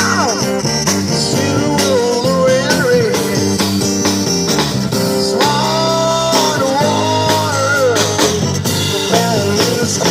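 A busker band playing amplified guitar music in a blues-rock style, with a melody line that slides and bends in pitch over steady chords.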